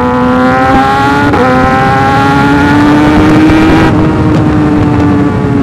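Kawasaki Ninja ZX-6R's inline-four engine running under way, its note climbing steadily for about three and a half seconds and then easing off slightly. A rushing hiss above it fades about four seconds in.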